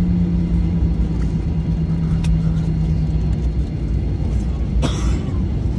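Cabin noise of a Boeing 737-900 taxiing: a loud, steady low rumble from the engines at idle and the rolling airframe, with a steady hum that fades about three seconds in. A brief knock sounds near the end.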